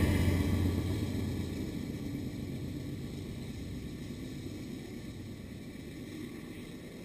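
Diesel-electric freight locomotive (BNSF 4183) and its train rumbling past and moving away, the low engine and wheel rumble dying down steadily to a faint distant rumble.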